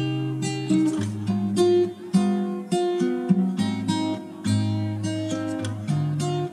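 Background music: acoustic guitar played in a run of plucked and strummed notes.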